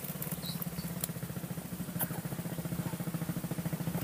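Small motorcycle engine running with a fast, even pulse, slowly getting louder as it approaches.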